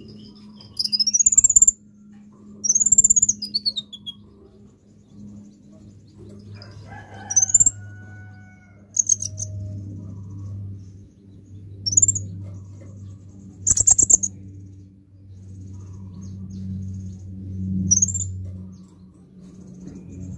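Van Hasselt's sunbird (kolibri ninja) giving sharp, high chirps, about seven calls spaced one to four seconds apart, some delivered as quick rattling runs of notes. A steady low hum runs underneath.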